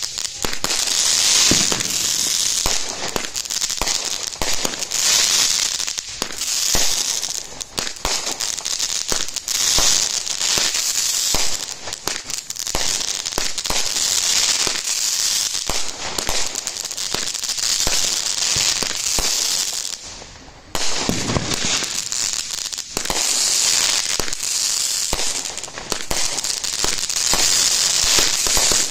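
Phantom Fireworks 'Falcon Rising', a 25-shot 200-gram consumer cake, firing its shots in rapid succession: launch thumps and bursts over a dense, almost unbroken crackle. There is a short pause about twenty seconds in, then a deeper thump as the firing picks up again.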